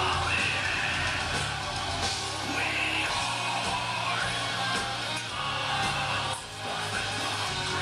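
Melodic death metal band playing live: distorted electric guitars and bass over drums, with shouted vocals. The band cuts out for a split second near the end and then comes back in.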